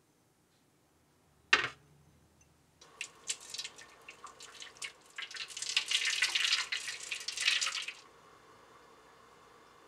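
A ceramic ramekin knocks once as it is set down on a metal baking tray, about one and a half seconds in. Then hot water is poured into the tray around the ramekins for a water bath, splashing and trickling for about five seconds before it stops.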